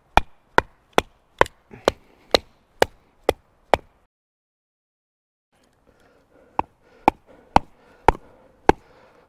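Kindling being split by batoning: a wooden baton knocking on the spine of a knife driven into a split of firewood. There are sharp knocks about two a second, nine in a row, then a break of about two seconds and five more.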